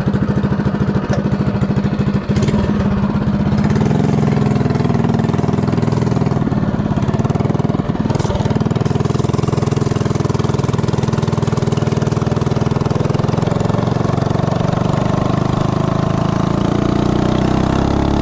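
Predator 212 Hemi single-cylinder engine with a header pipe, fitted with a stock Tillotson 212 cam and 22-pound valve springs, running on a minibike just after starting. It pulses at low revs at first, then revs up as the bike pulls away, and its pitch climbs near the end as the bike speeds up.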